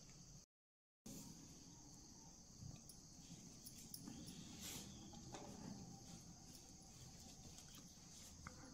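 Near silence with a faint, steady high-pitched chorus of crickets chirping, and a few faint soft sounds of hands working food. The sound cuts out completely for about half a second near the start.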